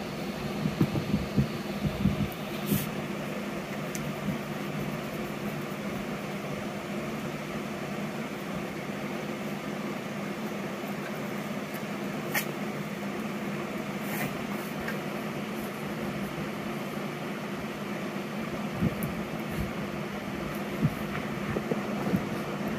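A steady mechanical hum from a room appliance such as a fan runs throughout. Over it come rustling and soft thumps of a small dog being wrestled on a bed, busiest in the first two seconds and again near the end.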